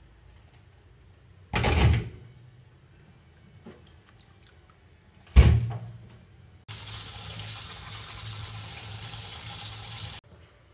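Kitchen tap running into a plastic bowl of vegetables in a steel sink: a steady rush of water for about three and a half seconds that cuts off suddenly. Before it, two short loud knocks, the second sharper.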